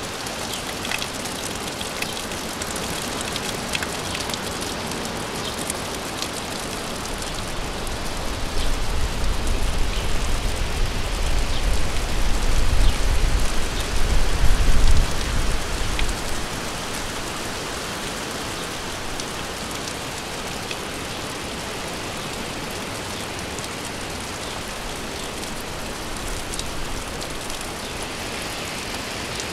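Steady rain falling, with scattered ticks of individual drops. About a quarter of the way in, a deep low rumble swells for several seconds and then fades out.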